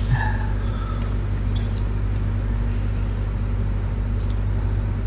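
Steady low background hum, with a brief choked sob from a weeping man just after the start.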